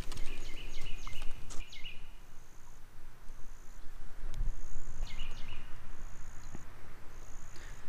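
Outdoor summer ambience: insects chirping in short high-pitched pulses about once a second, with a few longer chirping calls, over a steady low rumble and a few light clicks.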